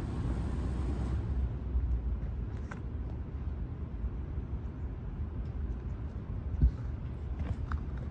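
Steady low outdoor background rumble, with a single thump about six and a half seconds in and a few faint clicks.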